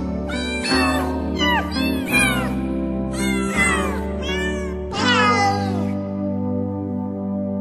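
Novelty music made of recorded cat meows set to a tune, a string of falling meows over held chords and a bass line. The meows stop about five and a half seconds in, leaving a held chord.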